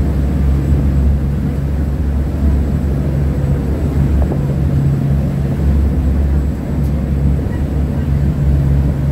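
Steady low mechanical drone of a passenger ferry's machinery while the boat is underway, heard from its top deck.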